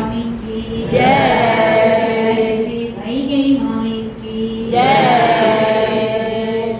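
Voices singing a devotional hymn together in long held notes over a steady drone. A loud phrase begins about a second in and another near five seconds in, each sliding in pitch as it starts.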